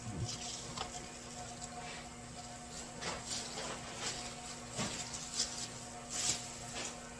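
Scattered light clicks and rustles, several of them in the middle and second half, over a steady low electrical hum.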